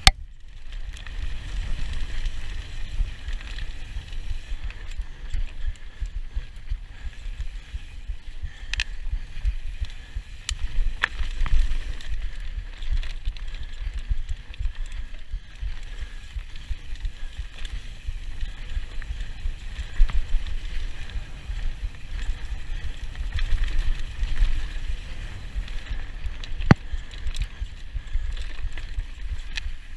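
Mountain bike riding fast down a dirt singletrack, picked up by a camera on the rider: a continuous low rumble of wind and trail chatter, with a few sharp clacks from the bike rattling over bumps.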